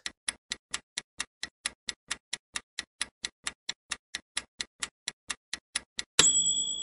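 Countdown-timer sound effect: a clock ticking evenly, about four and a half ticks a second, as the quiz timer runs out. About six seconds in, the ticking stops and a sudden louder sound with a high ringing tone marks time up.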